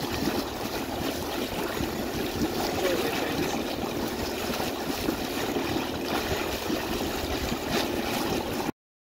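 Steady rush and trickle of moving water with a faint hum underneath, cutting off abruptly near the end.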